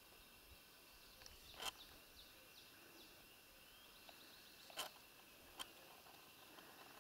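Quiet rural ambience: faint bird chirps over a steady high hum of insects. A few sharp clicks stand out, about a second and a half in and twice near five seconds.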